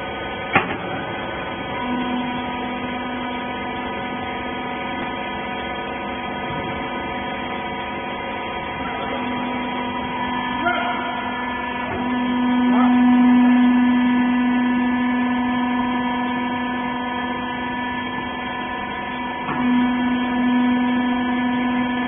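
Hydraulic power unit of a small horizontal rags baler running: the electric motor and pump make a steady hum that swells about twelve seconds in and eases off again. A sharp click comes about half a second in.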